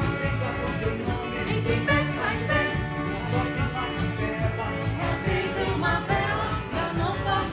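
Live amateur group music: a man sings into a microphone over several strummed acoustic guitars and an electric guitar.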